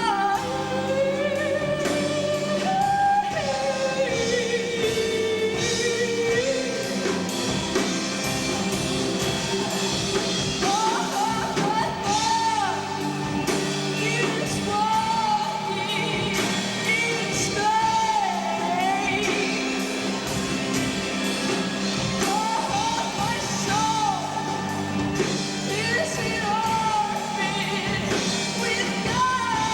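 Live band performing a song: a singer holding wavering, gliding notes over steady instrumental backing and drum hits, recorded through a camcorder's built-in microphone.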